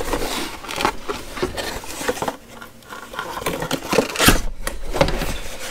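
Cardboard packaging handled by hand: the flaps of an opened box rustle and scrape in irregular bursts, with a louder knock about four seconds in as the box is moved.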